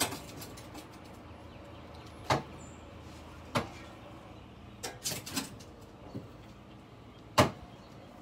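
A metal shovel blade being driven into soil and mulch to dig a planting hole: a handful of short, sharp strikes a second or two apart, a quick cluster just past the middle and the loudest one near the end.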